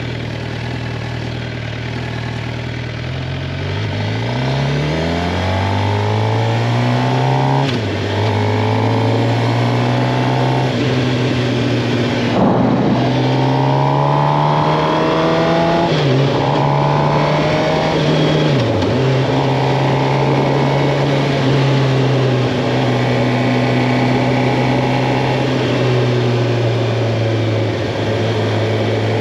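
Suzuki GSX-R 750's inline-four engine pulling away from low revs, the pitch rising, dropping briefly at a gear change about 8 seconds in and rising again. It then runs at a steady cruise, with two short dips in revs later on.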